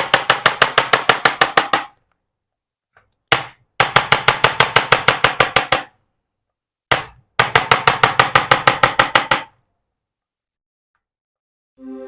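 Chiropractic adjusting gun firing in three bursts of rapid, even impulses, about eight a second for about two seconds each, with a single click before each burst. Background music begins at the very end.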